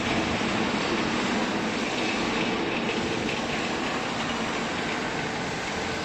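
Factory machinery running with a steady, even mechanical noise and hum that does not change.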